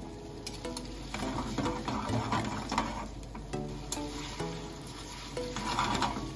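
Metal tongs stirring and tossing spaghetti in an aluminium frying pan, with irregular scrapes and clicks against the pan as the pasta is worked to emulsify the sauce. Background music with short melodic notes plays underneath.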